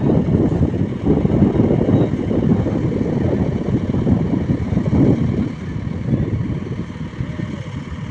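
Heavy diesel machinery engine running, a rough low sound that eases off a little about five and a half seconds in.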